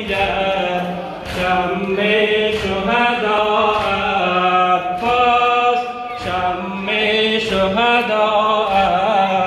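Shia Muharram mourning lament (noha) chanted by a male voice, with a steady low drone underneath. Sharp slaps come every second or two.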